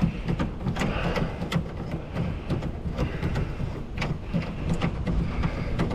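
Scrap metal pieces knocking and clanking irregularly as they are shifted in a pickup bed, over a steady low rumble of wind on the microphone.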